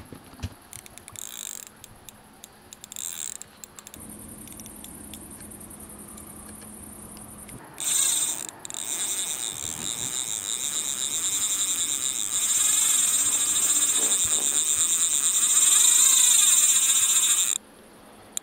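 Drag of a big spinning reel ticking in a fast, high buzz as a hooked fish takes line. A few short spurts come first, then a long run that grows louder and cuts off suddenly near the end.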